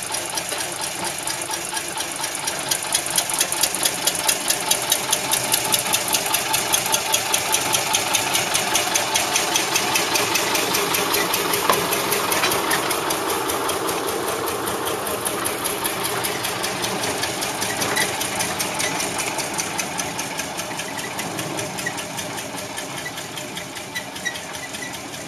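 Small narrow-gauge diesel locomotive engine running with a rapid, even knocking beat, growing fainter over the last few seconds as the locomotive pulls away.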